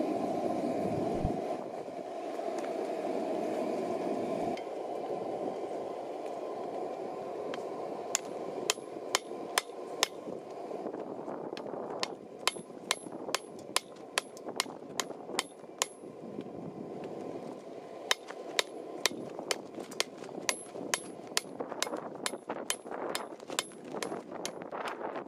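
Hand hammer striking a red-hot steel bar clamped in a vise, each blow a sharp metallic clang with a high ring. The blows come about two a second in runs, with a couple of short pauses, as the hot end is shaped. The first few seconds hold only a steady rushing noise before the hammering starts.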